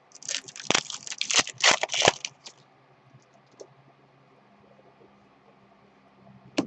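Trading-card pack wrapper being torn open and crinkled by hand, a quick run of crackles lasting about two seconds, with a single click near the end.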